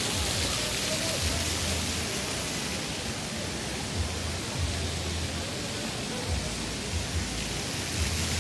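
Steady hiss of falling water, with a few brief low rumbling thumps.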